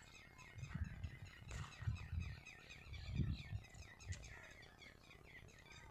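Faint birds calling, a dense run of small chirps throughout, with irregular low thumps underneath.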